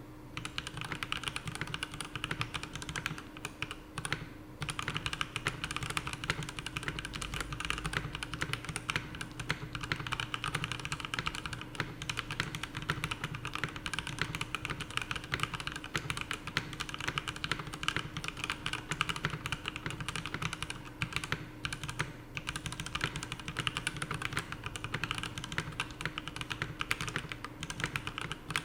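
Continuous typing on a Space65 Cyber Voyager mechanical keyboard with TTC Red Eye switches, a carbon fiber plate and PBT keycaps: a rapid, steady clatter of keystrokes with short pauses about four seconds in and near the twenty-two second mark, echoing in the room.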